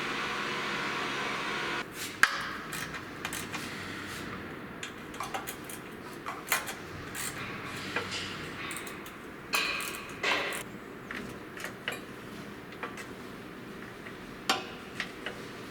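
Hand tools clinking and knocking on metal parts under a car: single sharp taps and clanks spaced irregularly a second or more apart, the loudest about two seconds in. A steady hiss cuts off just before it.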